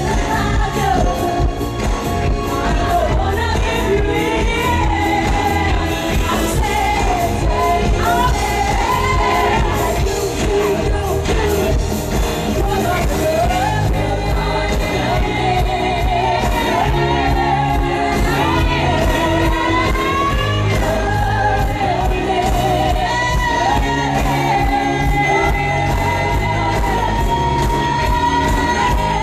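Live pop song with female lead vocals and a backing band, amplified through a concert PA: a wavering sung melody with vibrato over a steady beat, ending on a long held note.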